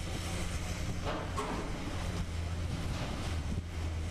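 Heavy diesel machinery running steadily with a low, even engine hum, and a short knock a little over a second in.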